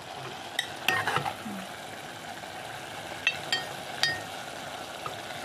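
Pork innards frying in an aluminium pot with a steady sizzle while a metal spoon stirs them, clinking against the pot with a short ring several times, around one second in and again a few seconds later.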